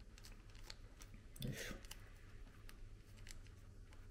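Faint crinkling and clicking of a small plastic sachet being squeezed as chili oil is pressed out into a cup of instant noodles, over a low steady hum.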